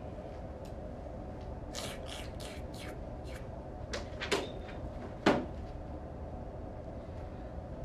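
Foley sound effects: a quick run of soft clicks and taps about two seconds in, then sharper knocks near four seconds and again near five seconds, over a steady faint hiss.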